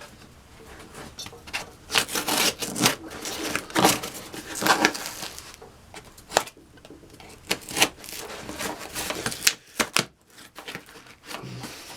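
Cardboard shipping box being opened by hand: irregular scraping, rustling and knocks of cardboard and packing, in short uneven bursts.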